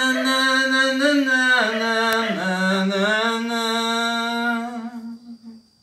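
A man singing unaccompanied, holding one long drawn-out note with no words; the pitch slides down a little about two seconds in and the lower note is held until it fades near the end.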